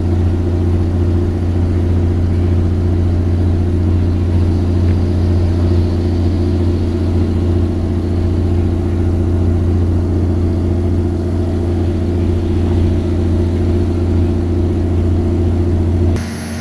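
A fishing boat's engine running steadily at sea, a loud, deep, unchanging drone, which drops off sharply near the very end.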